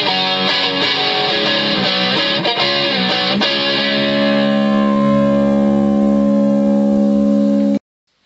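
Electric guitar played through a Boss ME-20 multi-effects pedal with a distorted tone: a quick run of notes and chords, then one chord struck about three and a half seconds in and left to ring. The ringing chord cuts off abruptly near the end.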